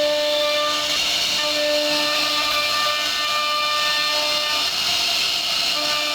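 CNC router spindle running at high speed while it carves wood: a steady high whine over a cutting hiss. The whine's tones fade in and out as the load on the bit changes.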